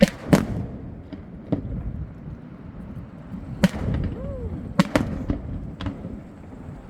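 Fireworks going off: about seven sharp, irregular bangs, the loudest about a third of a second in, over a steady low rumble.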